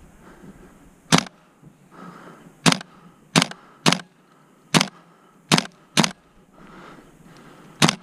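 Airsoft gun firing single shots: eight sharp cracks spaced unevenly, with a pair close together about six seconds in.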